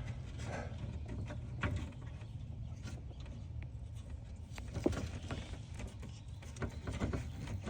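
Scattered light clicks and taps of hand-starting screws and handling the plastic lower dash panel, over a steady low hum.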